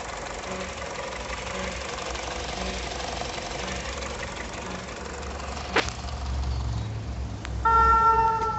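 Citroën C4 1.4 VTi petrol engine idling cold, with a soft rhythmic rubbing noise about once a second, the start-up noise the owner is trying to trace. A sharp click comes near the middle, and a loud steady pitched tone, like a horn, comes in near the end and is the loudest thing.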